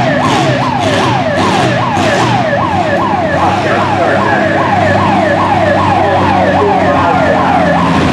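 International Harvester 460 tractor running hard under load while pulling a weight-transfer sled. Over the engine, a squeal falls in pitch again and again, a little over twice a second, and dies away near the end.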